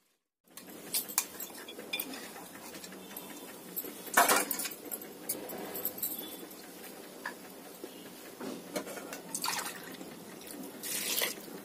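Soaked toor dal tipped from a metal bowl into an aluminium pressure cooker onto soaked rice: wet grains sliding and pattering into the pot, with clinks and knocks of metal on metal, the loudest about four seconds in.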